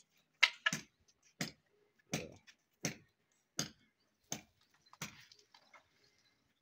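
A broom sweeping grit and tile debris across a bare concrete roof slab: about eight short, sharp strokes at a steady pace, roughly one every 0.7 seconds, stopping about five seconds in.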